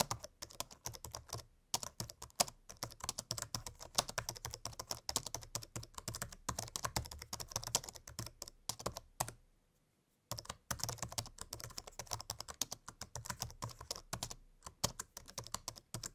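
Fast typing on a laptop keyboard: a dense run of quick key clicks, broken by a pause of about a second a little past halfway.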